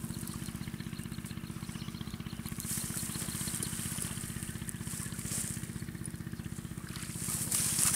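An engine running steadily, with an even, rapid pulse.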